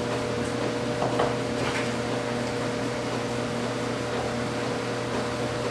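Steady mechanical hum of a running appliance, with a faint constant whine over it, and two faint clicks about a second in.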